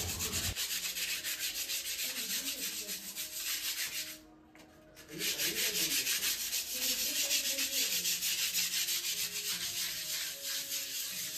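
Sandpaper rubbed by hand in back-and-forth strokes over a damp-damaged plaster wall, scraping off loose flaking paint. The rasping pauses briefly about four seconds in, then resumes.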